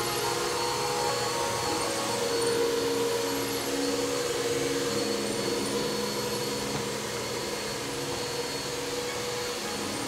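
Upright bagless vacuum cleaner running on carpet: a steady whirring noise with a motor tone whose pitch shifts slightly as it works.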